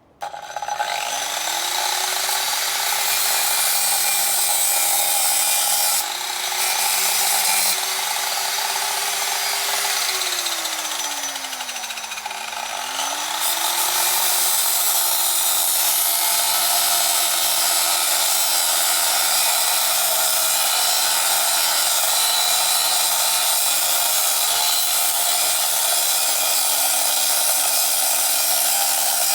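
Angle grinder spinning up and cutting through old metal bed frame, a steady high whine with a hiss of metal being cut; the motor's pitch sags under load partway through, then recovers and holds steady.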